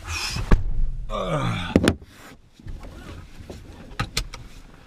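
Car door being pulled shut with a solid knock about two seconds in, after some rustling and shuffling. Near the end come a couple of quick clicks as the seatbelt buckle is latched.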